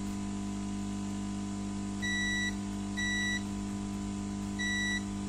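Digital multimeter in continuity/diode mode giving three short, high-pitched beeps, about two, three and four and a half seconds in, as its probes touch the pins of a MOSFET. The beeps signal a short across the transistor, which is judged bad. A steady low hum runs underneath.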